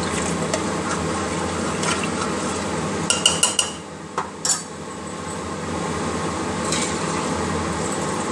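A metal spoon stirs a watery curry in a pressure cooker. About three seconds in come a few quick ringing metallic clinks, and a moment later two more clinks as the spoon is set down.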